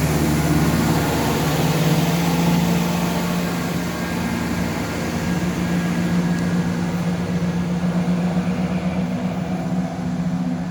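Class 170 Turbostar diesel multiple unit pulling away, its underfloor diesel engines running under power with a steady deep hum that eases slightly near the end.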